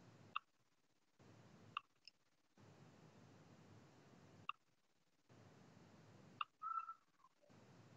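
Near silence: a faint microphone hiss that cuts in and out, broken by about five short, sharp clicks spaced irregularly, with a brief cluster of clicks near the end.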